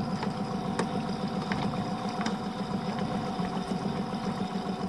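Small boat's outboard engine idling steadily, with a few faint ticks over the drone.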